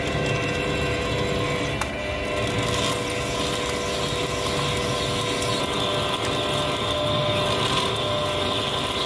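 TM-26120G centre lathe running with a steady gear whine, turning a steel hydraulic cylinder rod while the tool cuts near the rod eye to part it off.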